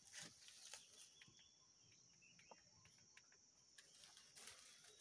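Near silence with a faint, steady, high-pitched insect drone that starts about a second in and stops near four seconds, plus a few faint ticks.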